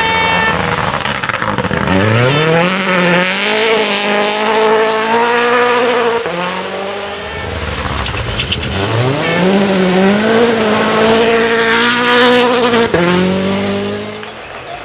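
Rally car engine accelerating hard through the gears, its pitch climbing and stepping at each upshift. This happens twice, a few seconds apart.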